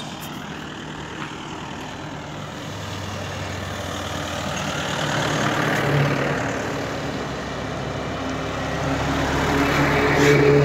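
Road traffic approaching and passing, growing louder twice; the loudest is a bus's engine as it goes past close by near the end.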